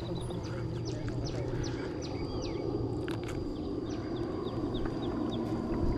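Small birds chirping: many short falling chirps, with a quick run of them near the end, over a steady low rushing noise and a thin steady high tone.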